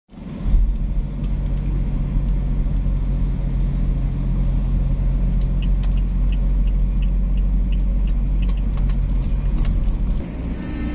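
Steady low rumble of a car's engine and tyres on the road, heard from inside the cabin. A light, regular ticking runs for a few seconds midway, about three ticks a second, and the rumble eases just before the end.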